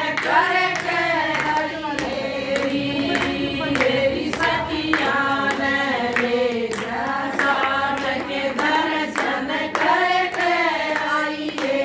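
A group of women singing a Hindu devotional bhajan together, clapping their hands on a steady beat.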